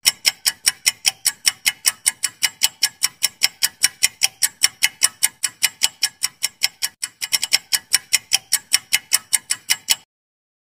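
Clock-ticking sound effect of a quiz countdown timer, marking the time left to answer: quick, even ticks at roughly five a second. There is a brief faster flurry about seven seconds in, and the ticking stops abruptly about ten seconds in.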